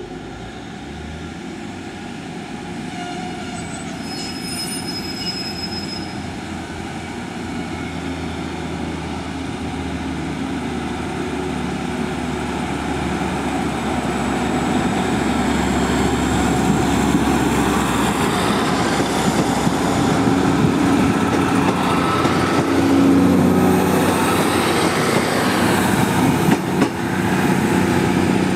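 Class 153 and Class 150 Sprinter diesel multiple units pulling away under power, their underfloor diesel engines running and growing steadily louder as the train accelerates past. A short high-pitched whistle sounds about four seconds in, and high-pitched wheel squeal comes in near the end.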